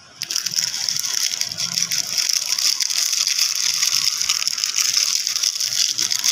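Plastic biscuit packet crinkling in a dense, steady crackle as a chocolate chip cookie is crushed inside it and its crumbs are shaken out.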